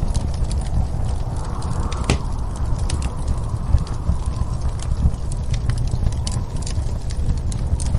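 Wood fire crackling with many small sharp pops, over a steady low rumble of snowstorm wind.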